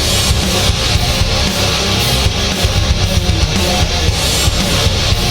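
Loud intro music: driving electric-guitar rock with heavy bass and drums.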